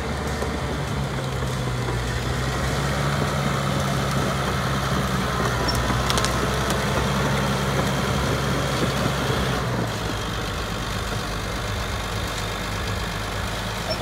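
Caterpillar D6-series crawler bulldozer's diesel engine running steadily. Its note drops a little about ten seconds in.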